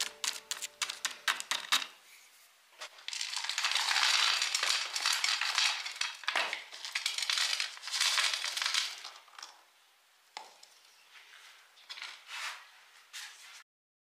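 Gravel poured from a scoop into a glass tank of rocks, rattling and trickling down between the stones, loudest from about 3 to 9 seconds. Light clicks of stone on stone and glass before and after the pour.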